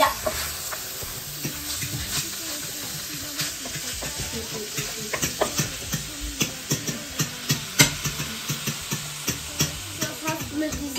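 Minced beef sizzling in a frying pan, with a wooden spatula stirring and scraping it in frequent short taps and clicks.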